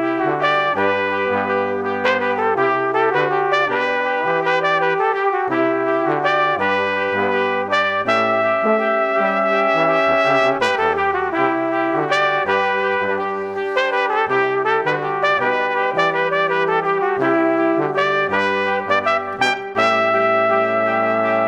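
Background music: sustained instrumental chords that change every second or so, with the sound of a brass ensemble.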